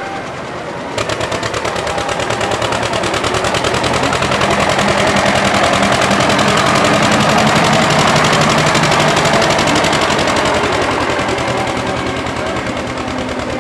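Tractor engine running hard at high revs, its exhaust a rapid, even rattle of pulses. It cuts in about a second in, swells to its loudest in the middle and then slowly fades.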